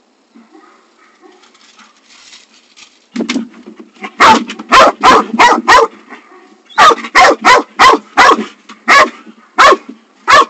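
Dutch Shepherd barking loudly, about a dozen short barks in quick runs with brief pauses, starting about three seconds in.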